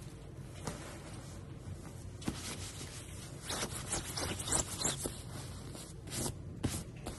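A new Allergy Care comforter being handled and squeezed by hand, its crisp fabric rustling in a string of short rustles from about two seconds in.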